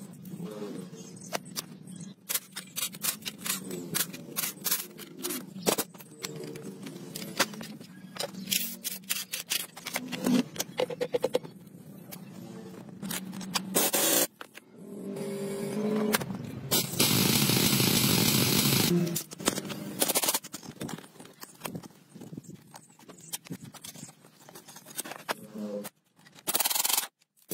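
Air impact wrench hammering bolts loose on an old motorcycle: a short burst about halfway in, a steadier run of about two seconds a little later, and another short burst near the end. Between the bursts, hand tools and sockets clink and scrape on metal.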